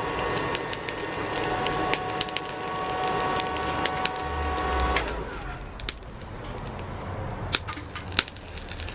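Homemade aluminium-melting furnace running with a steady whine that cuts off suddenly about five seconds in. Crackling and sharp clicks run throughout.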